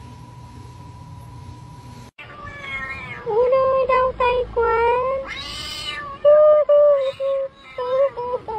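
Domestic cat meowing in a long run of drawn-out, wavering meows that starts about two seconds in and grows loudest in the second half. Before the meows there is only a faint steady high tone over a low hum.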